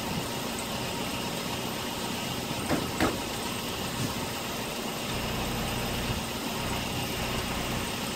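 Steady low engine hum, like a vehicle idling, with a few light knocks about three seconds in as a jacked-up car's front wheel is rocked and turned by hand to check the ball joints and wheel bearing for play.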